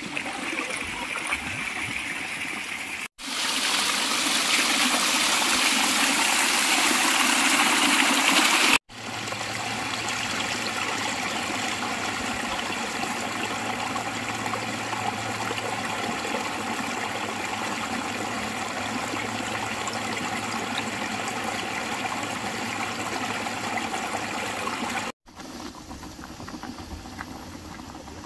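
Shallow stream of water running and trickling over boulders, a steady rush of water. The sound cuts between shots a few times, with a louder, hissier stretch from about three to nine seconds in.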